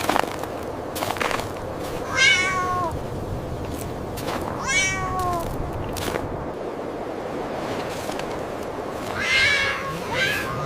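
A cat meowing: three drawn-out meows that slide down in pitch, a few seconds apart, with another starting near the end, over a steady background hiss and a few short knocks.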